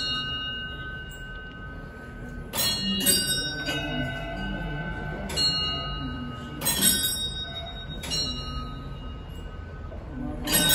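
Bells on large monastery prayer wheels ringing as the wheels are turned. Six strikes come at uneven spacing, each leaving a ringing tone that overlaps the next.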